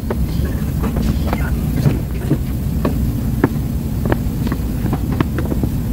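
Handheld heat gun running steadily while a dented plastic car bumper is warmed and pushed back into shape, with scattered light clicks and taps through the steady noise.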